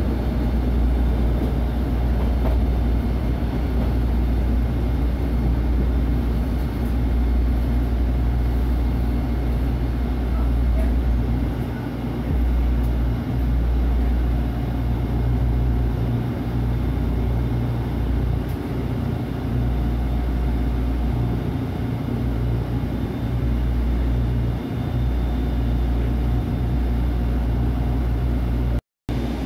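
Steady low rumble and hum inside a SEPTA Route 101 trolley car as it draws into a stop and stands at the platform. The sound cuts out for a moment near the end.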